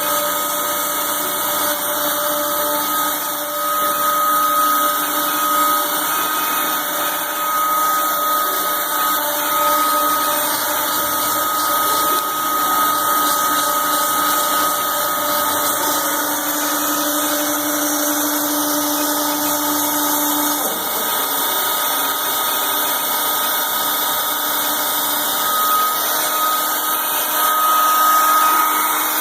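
CNC router spindle running with a steady high whine while its cutter surfaces the wooden spoilboard.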